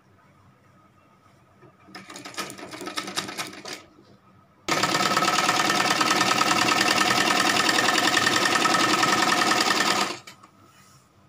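Domestic sewing machine stitching a folded fabric waistband: a short run that picks up speed about two seconds in, then after a brief pause a fast, steady run of about five seconds that starts and stops abruptly.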